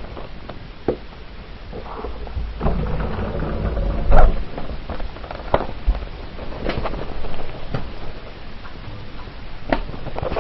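Car cabin noise: a low rumble with scattered clicks and knocks, and one louder knock about four seconds in.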